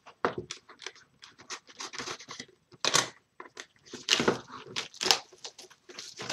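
Packaging on a cardboard hobby box of hockey cards being torn and worked open by hand: irregular crinkling, scratching and tearing rustles, with louder rips about 3, 4 and 5 seconds in.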